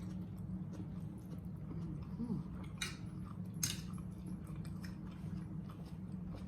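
Close-up chewing of beef liver and onion, with faint wet mouth clicks and two short sharp smacks about three seconds and three and a half seconds in. A steady low hum runs underneath.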